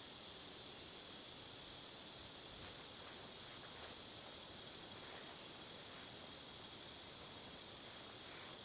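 Faint, steady chorus of insects such as crickets, a high rapid pulsing trill with no other sound standing out.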